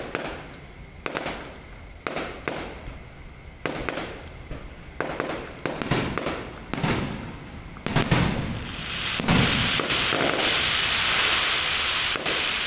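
Aerial fireworks bursting overhead in a run of sharp bangs, roughly one a second. From about nine seconds in, a steady high hiss fills in beneath a few more bangs.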